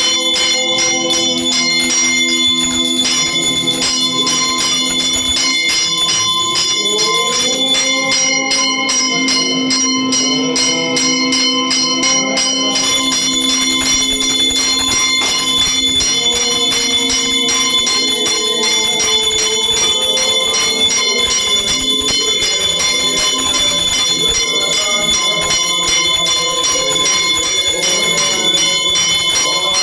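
Brass puja hand bell rung rapidly and without a break, its ringing tones held steady, over a melody whose pitch rises and falls underneath.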